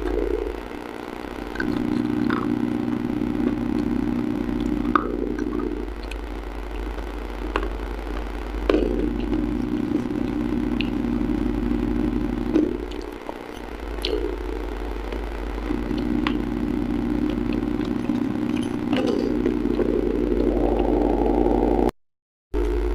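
A steady low hum runs under most of it and drops out briefly a few times. Over it come scattered sharp clicks and crunches from eating out of a clay pot with a spoon.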